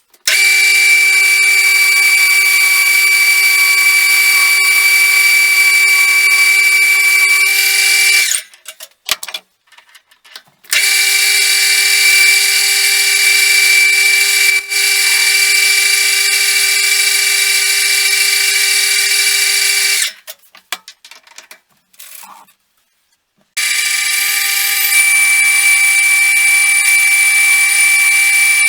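Metal lathe running while a parting tool cuts through a steel workpiece, giving a loud, steady, high-pitched whine. It stops twice, for a few seconds each time, about 8 and 20 seconds in, then starts again.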